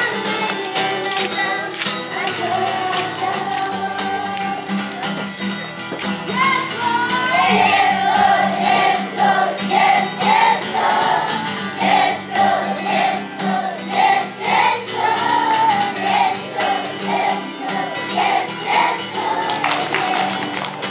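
A group of children singing a song together over steady accompaniment, the melody moving in short even syllables about twice a second from a third of the way in.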